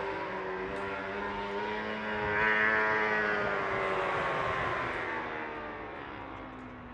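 Racing motorcycle engines at high revs going past: one fading away, then another swelling with a rise and fall in pitch as it passes about two and a half seconds in, then dying away.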